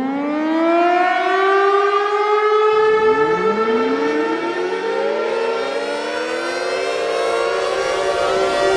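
Civil defense siren winding up and holding a steady tone. About three seconds in, a second siren starts winding up and settles close to the first.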